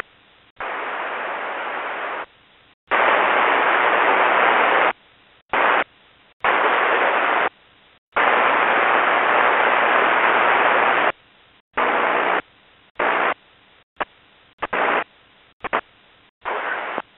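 Air-band radio scanner on military aviation frequencies hissing in bursts of static with no words. Several long bursts of one to three seconds come first, then many short ones near the end, each cutting in and out abruptly as the squelch opens and closes.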